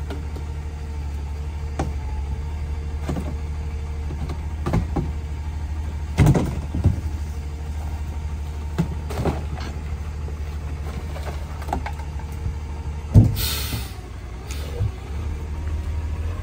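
CNG rear-loader garbage truck (Leach 2R-III body) idling steadily while trash bags are thrown and a trash can is dumped into its hopper, giving a string of irregular thumps and knocks. A short hiss of air comes just after the loudest knock, about 13 seconds in.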